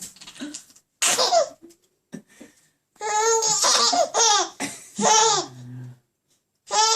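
A baby laughing in high-pitched fits at a sneeze. A short burst comes about a second in, then a longer run of laughter a couple of seconds later.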